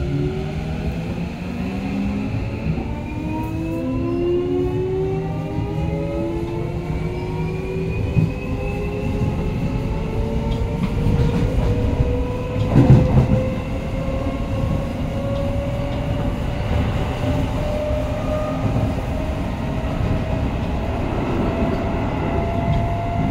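Keio Line electric train heard from inside the passenger car, accelerating: the traction motor whine, several tones together, rises steadily in pitch over the rumble of the wheels on the rails. A louder thump comes about halfway through.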